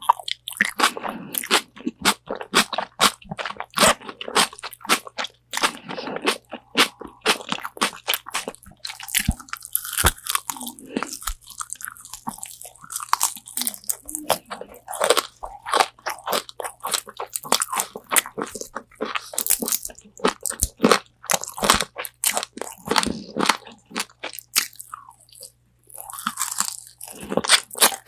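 Close-miked biting and chewing of crispy Korean fried chicken wings: loud, irregular crunches and crackles of the fried coating, with wet chewing between bites.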